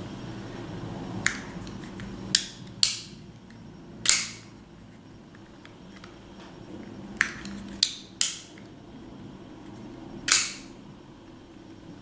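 Italian stiletto automatic knife's mechanism clicking and snapping as the guard is pulled back to unlock the blade and the blade is worked and closed: about eight sharp metallic clicks, two louder snaps with a short ring about 4 s and 10 s in.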